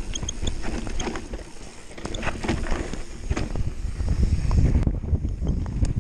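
Mountain bike riding fast down a dirt and rock trail, heard from a camera on the rider: tyres rolling over the ground, the bike clattering and knocking over bumps, and wind rumbling on the microphone, heavier from about four seconds in.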